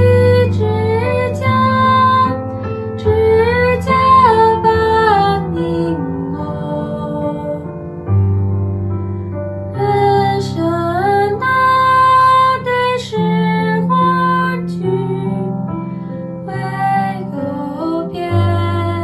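A slow song: a high solo voice sings a melody in phrases over held accompaniment chords.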